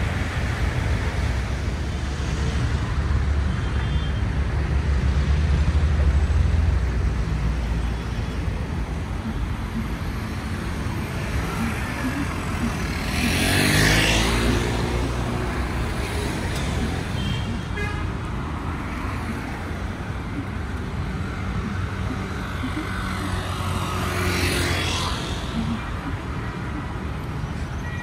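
Road traffic on a busy city street: a steady rumble of cars and vans driving past close by. Two vehicles pass especially close, one about halfway through and one near the end, each swelling up and fading away.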